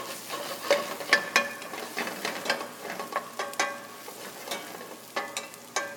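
A wooden spoon stirring garlic slivers in olive oil in a skillet, knocking and scraping against the pan many times, with the pan ringing briefly after some knocks. The garlic sizzles in the oil.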